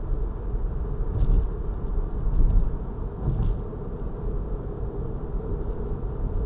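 Steady low road and tyre rumble inside a moving Tesla Model 3's cabin, with two brief soft surges about a second and three seconds in.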